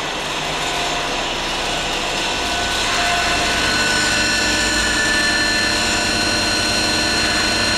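Vacuum emulsifying mixer running empty, its motor-driven high-shear homogenizer giving a steady hum with several whining tones on top. About three seconds in it gets a little louder as more high whining tones come in.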